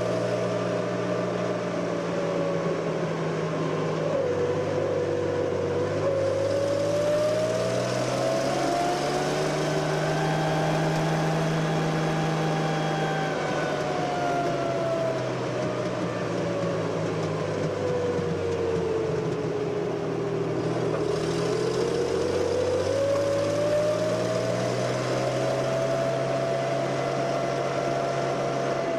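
Daimler Ferret scout car on the move, its Rolls-Royce six-cylinder petrol engine running steadily. Over it a whine rises slowly in pitch, peaks about a third of the way in, sinks to a low point about two-thirds in, and rises again as road speed changes.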